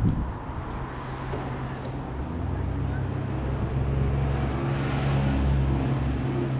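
An engine humming steadily at a low pitch, growing louder a couple of seconds in and easing off near the end.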